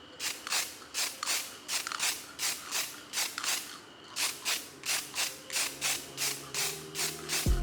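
Quick, rhythmic rasping strokes of a hand tool working a surface, about three a second. Music comes in near the end.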